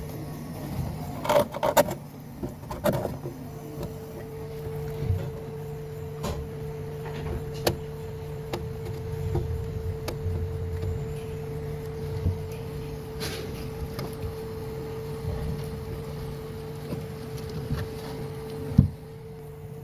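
Refrigerator compressor humming steadily, with scattered sharp clicks and knocks from handling, a cluster in the first few seconds and a louder knock near the end.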